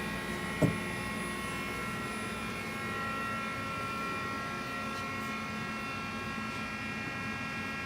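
Mori Seiki NL1500Y CNC lathe running with a steady hum and a whine of several steady high tones. A single sharp knock comes under a second in.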